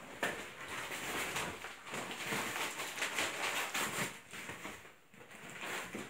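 Packaging rustling and crinkling as it is handled, a dense crackle that eases off around five seconds in and then picks up again.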